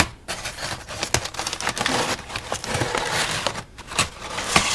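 Packing paper rustling and crinkling as it is pulled out of a shipping box, with small crackles and a few sharper clicks.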